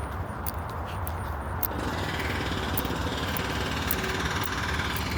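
Hydraulic breaker (jackhammer attachment) on a Case excavator hammering in a rapid continuous rattle, starting about two seconds in and stopping suddenly near the end, over the steady low running of the diesel engine.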